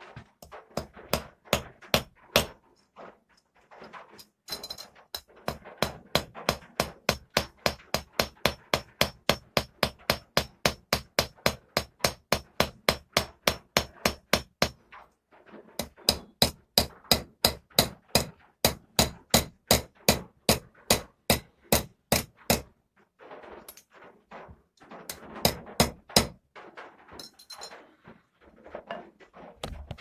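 Small hammer tapping a folding knife's pivot against a steel anvil, ringing metal-on-metal blows in long even runs of about four a second, peening the pivot rivet to set the friction-folder's blade. The runs break off briefly about halfway through, with a few scattered blows near the end.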